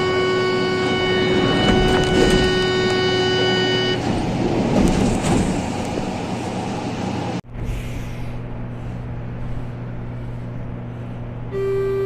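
MP-82 metro train's door-closing warning buzzer: a steady buzzing tone that stops about four seconds in, giving way to train and platform noise. The sound breaks off abruptly a little past halfway, and the buzzer sounds again near the end.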